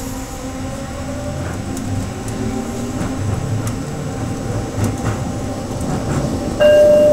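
Detroit People Mover train, a linear-induction-motor car on steel rails, running along its elevated track: a steady low rumble from the wheels with a faint whine rising in pitch as it speeds up. Near the end a loud, steady electronic tone starts suddenly.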